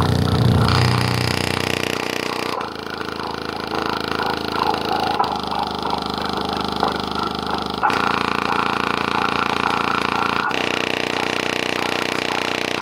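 A 70 W subwoofer driven hard with bass, its cone and the loose grit on it giving a rough, buzzing rattle. The sound shifts abruptly about every two and a half seconds.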